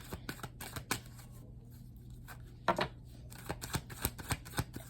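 A tarot deck being shuffled and handled: light, scattered card clicks and flicks, one sharper snap a little past halfway, then a quicker run of flicks near the end.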